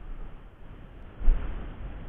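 Low rumble and wash of seawater and wind against an action camera held at the sea surface, with a brief surge about a second in.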